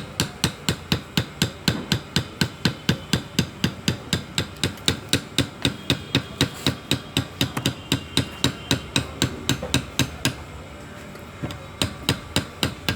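Hammer tapping in a fast, even run of about four strikes a second, pausing for about a second near the end and then starting again.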